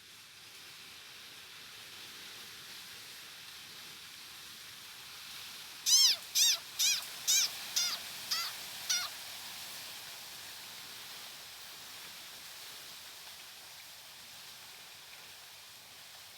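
An animal calling: seven short, high calls in quick succession, each rising and then falling in pitch, fading in loudness, over a steady faint background hiss.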